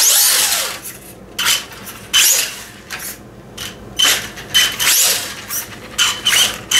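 Electric RC truck driven in short throttle blips on a hard floor: the motor and drivetrain whine up and down and the wheels spin on the floor, about ten quick bursts. A shake-down run to check for odd noises, and the owner judges it to be running well.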